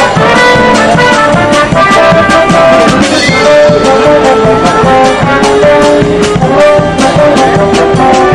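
A brass band of trumpets, trombones and saxophones playing a tune, loud and steady, with held notes over a regular beat of short percussive hits.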